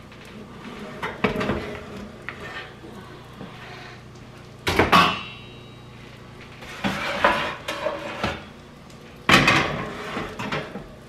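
Baking pans and a glass baking dish being moved in and out of a small wall oven: metal racks and pans clattering in four separate spells. The loudest is a sharp clank just before the middle that rings briefly.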